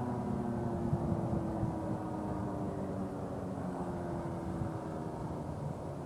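Federal Signal 2001-SRN rotating siren winding down at the end of its steady alert tone, its pitch slowly sliding lower and fading out over a few seconds, under a steady low rumble.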